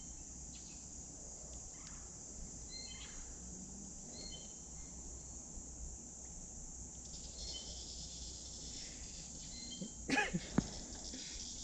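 Steady high-pitched buzz of insects in summer heat, with short repeated chirps over it. A few sharp knocks come about ten seconds in.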